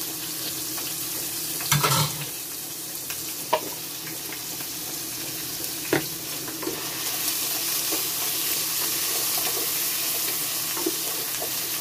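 Potatoes and carrots sizzling in butter in a pan while being stirred with a wooden spatula, with a few sharp knocks, the loudest about two seconds in. The sizzle grows a little louder after about seven seconds.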